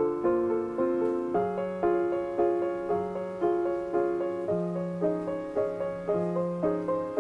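Background piano music: gentle notes struck about twice a second over a slow bass line.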